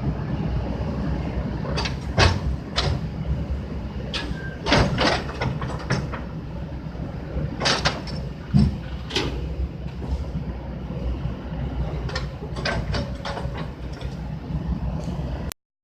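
Heavy vehicle engine running with a steady low rumble, with scattered metallic clanks and knocks on top. The sound drops out briefly near the end.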